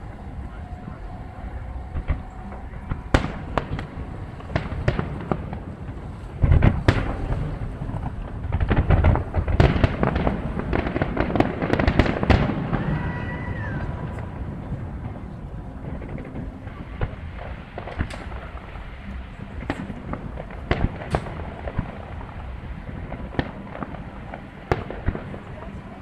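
Fireworks going off: scattered sharp bangs throughout, with a dense run of loud bangs and crackling from about six to thirteen seconds in.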